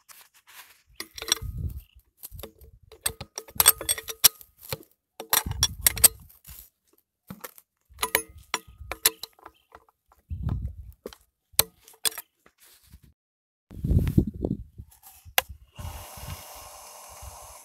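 A metal hand tool clinking and scraping on the bolt of a metal hose clamp as the clamp on a ribbed suction hose is tightened: a run of sharp clicks and clinks, some with a short ring, among dull handling thumps. A steady hiss sets in near the end.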